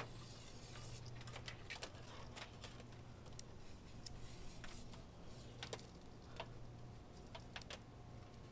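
Sections of a SOTAbeams fiberglass telescoping mast being pulled up hand over hand, giving scattered light clicks and knocks at irregular intervals, over a faint low steady hum.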